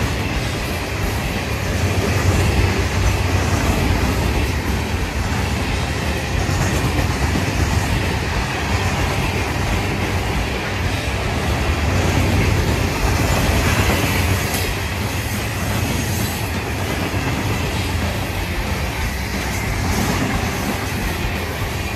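Freight train hopper cars rolling past at close range: a steady rumble of steel wheels on the rails, with occasional clacks as the wheels cross rail joints.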